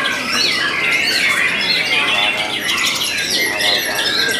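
Many caged white-rumped shamas singing at once in a contest, a dense tangle of overlapping whistles, rapid trills and chattering phrases.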